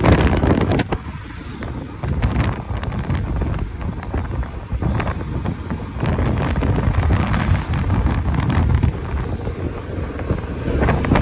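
Wind buffeting the microphone on a moving Royal Enfield Bullet motorcycle, in gusts that come and go, over the bike's engine and road noise.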